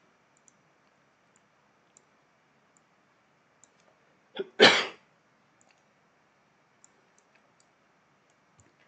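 A person coughs once, loudly and briefly, about four and a half seconds in. Faint computer mouse clicks tick now and then around it.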